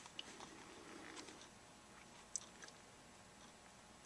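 Near silence: room tone with a few faint clicks, the clearest about two and a half seconds in.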